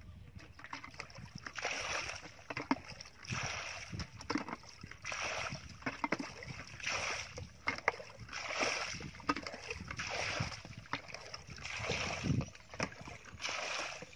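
Metal bucket scooping muddy water and dumping it with a splash, over and over about every second and a half to two seconds, with small knocks of the bucket in between: water being bailed out by hand.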